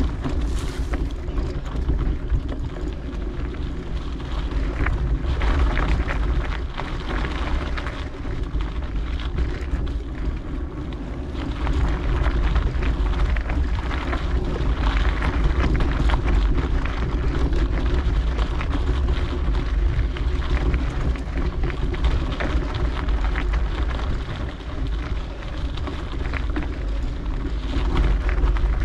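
Wind buffeting a moving action camera's microphone, over a steady low rumble with scattered knocks and rattles from travel along a dirt singletrack trail.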